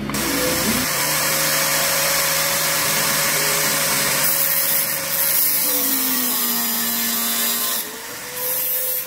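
Bosch angle grinder in a cut-off stand, its abrasive disc cutting metal rod: a loud, steady grinding hiss with a motor whine that sags under load. The sound eases briefly a little before the end, then picks up again.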